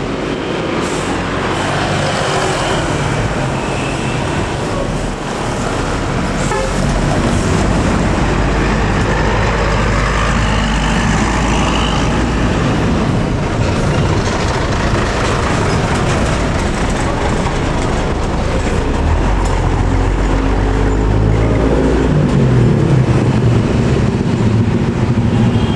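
Bus diesel engines running, with horn toots, and an engine note rising about 21 seconds in as a bus pulls up or away.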